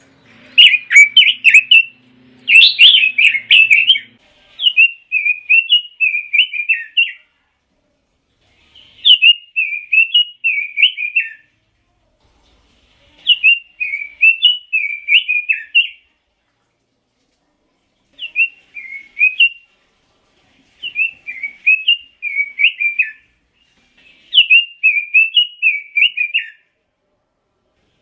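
Pekin robin (red-billed leiothrix) singing: about eight rich, warbling song phrases of two to three seconds each, separated by pauses of a second or two. The first few seconds carry extra high chattering notes over the song.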